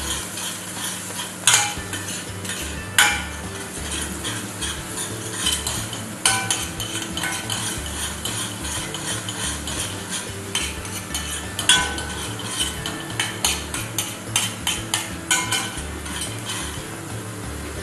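A spoon stirring minced garlic frying in oil in a small stainless steel saucepan, with repeated clinks and scrapes against the pan over a faint sizzle. Some clinks ring briefly. The garlic is being cooked only to golden, not browned.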